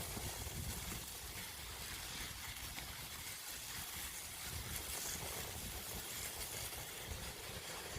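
Bicycle riding over fresh snow: a steady hiss with an uneven low rumble.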